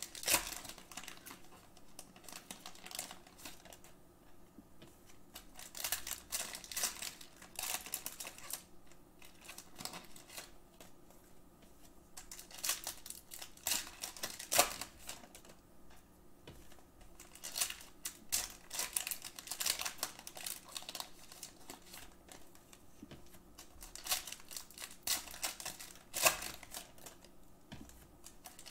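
Trading cards being handled and flipped off a stack on a tabletop: quick runs of light clicking and rustling, coming in clusters with short quiet gaps between.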